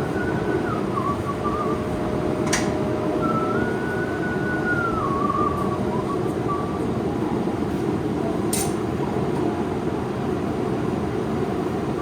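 Steady roar of a running forge, with a tune faintly whistled over it and two sharp clicks, one a few seconds in and one near the end.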